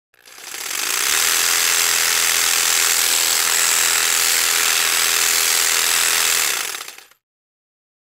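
Electric jigsaw running. It builds up over the first second, runs steadily for about six seconds, then dies away near the end.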